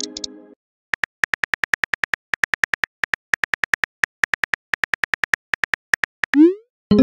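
Phone texting app's keyboard click sounds tapping quickly, several clicks a second, as a message is typed. Near the end comes a short rising swoop as the message is sent.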